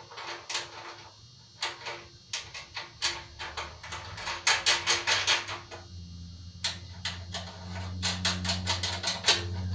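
Bolts and washers being fitted and tightened with a wrench on a tractor seat mount: sharp metal clicks and taps, some in quick runs of about five or six a second. A low steady hum comes in about halfway through.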